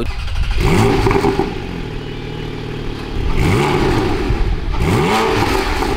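Porsche 718 Cayman GT4's flat-six engine through its stock (OEM) exhaust, revved in several blips that rise and fall, settling back to a steady run between them.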